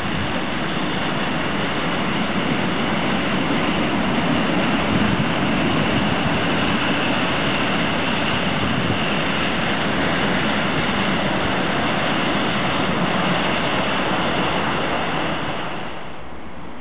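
Diesel shunting locomotive running past slowly as it hauls a tank wagon, with a steady engine drone and rail noise. The sound drops to a quieter level about a second before the end.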